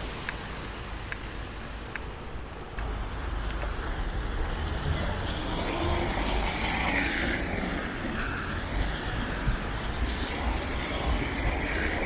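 A heavy vehicle's rumble swells up about three seconds in and carries on, with a whining, shifting mid-pitched sound over it in the second half. Before the rumble, faint regular footsteps are heard.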